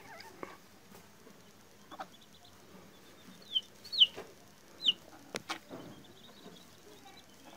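Two-week-old chick peeping: three short, high chirps, each falling steeply in pitch, come about half a second to a second apart starting about three and a half seconds in. Fainter rapid peeps and a couple of sharp clicks are also heard.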